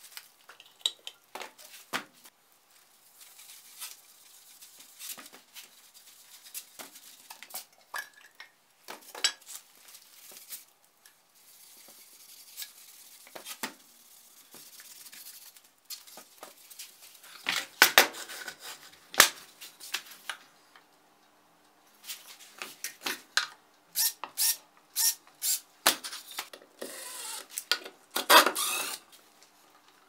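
Rubbing strokes and light clicks and knocks of larch wood parts being handled while they are coated with oil-wax. A denser run of sharp clicks and clatter comes in the last third.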